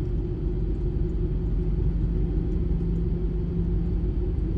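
Ford Transit van driving at town speed while towing a travel trailer, heard from inside the cab: a steady low road rumble with an even engine drone.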